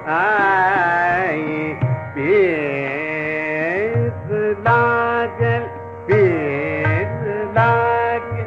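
Male Hindustani classical vocal in raga Sampoorna Bageshree: a man holds long notes and glides between them, with tabla strokes underneath.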